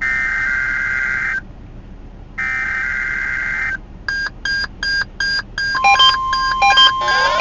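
NOAA Weather Radio SAME alert header for the Required Weekly Test: two bursts of warbling data tones, each a little over a second long, with a second's gap between them. About four seconds in, weather radio receivers answer with quick pulsed beeps, and a steady alarm tone joins them near the end.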